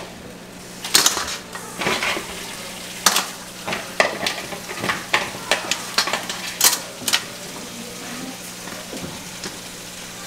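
Cleaned blue crabs being stirred in a hot pan on the stove: repeated sharp clinks and scrapes of the utensil against the pan and the crab shells over a light sizzle, with a steady low hum underneath.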